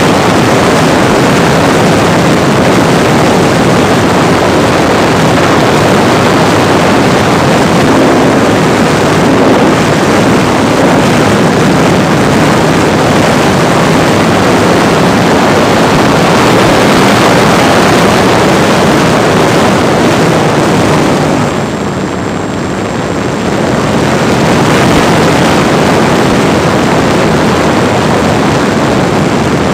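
Brushless electric motor and propeller of a Parkzone T-28D Trojan RC plane in flight, with rushing wind, heard from a camera riding in the plane's cockpit. It runs steadily loud, drops briefly about three-quarters of the way through, then comes back up.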